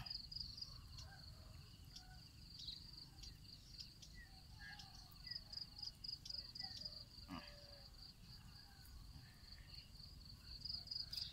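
Faint, steady, high-pitched trill of insects in the background, with a few faint short chirps scattered through it.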